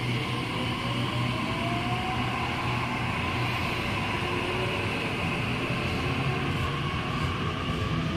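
Waratah Series 1 double-deck electric train accelerating away from a platform: the traction motors whine, rising in pitch over the first three seconds and then holding steady, over a steady low hum and the noise of wheels on rails.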